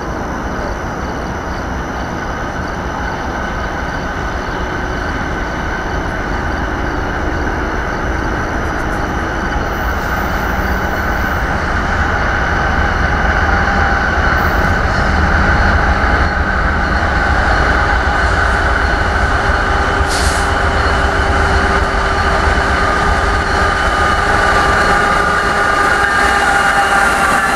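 BNSF freight train led by GE wide-cab diesel locomotives, approaching and passing at speed: a continuous low rumble that grows steadily louder, with high ringing tones building from about halfway in.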